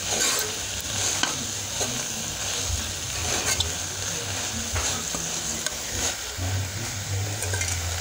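Metal spoon stirring leafy greens and potatoes in a steaming aluminium cooking pot, with scattered knocks and scrapes of the spoon against the pot over a steady hiss of the pot cooking.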